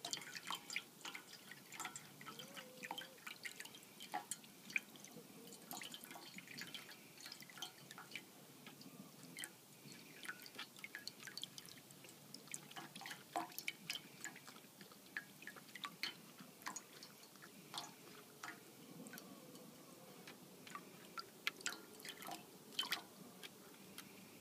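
Raccoon lapping water and dabbling its paws in a stainless-steel bowl: faint, irregular little drips and splashes.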